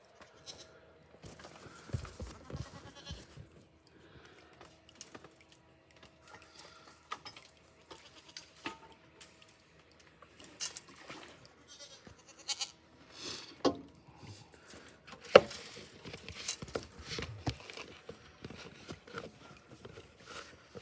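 Goats bleating amid scattered knocks and clatter; a single sharp knock about fifteen seconds in is the loudest sound.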